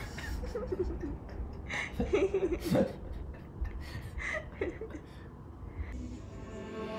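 Soft, embarrassed human laughter: a few short chuckles, spread over the first half or so.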